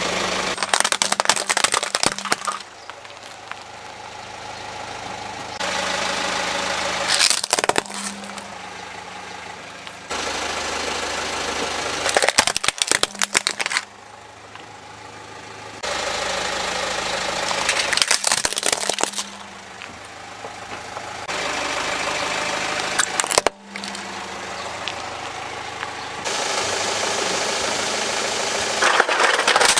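Car tyres rolling over plastic toy vehicles and crushing them: a burst of cracking and crunching plastic about every five seconds, several crushes in a row, over the steady sound of the car's engine running.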